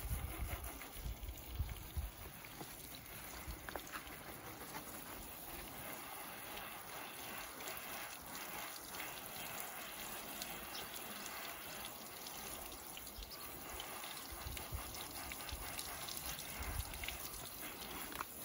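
Steady hiss of liquid spraying onto a car and trickling off it during a wash.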